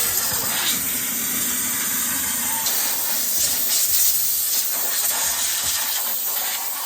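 Steam cleaner jetting steam in a steady, loud hiss.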